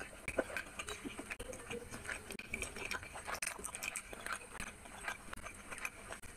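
Wet chewing and lip-smacking of someone eating chicken curry and rice with bare hands, heard as a dense string of short irregular clicks and smacks.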